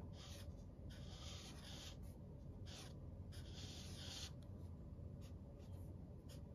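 Thick black felt-tip marker drawing on paper: a faint scratching with each stroke, a string of short strokes with brief pauses between them.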